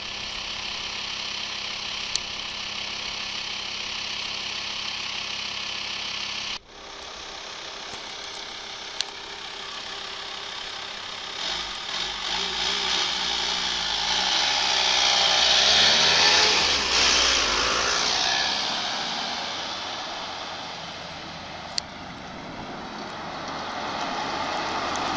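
Vehicle engines idling steadily. Then a VW Transporter ambulance drives past close by: its engine and tyre noise rise to a peak about halfway through and fade away as it leaves.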